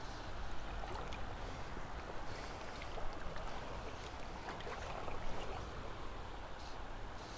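River water flowing and lapping, with scattered light splashes and a steady low rumble of breeze on the microphone.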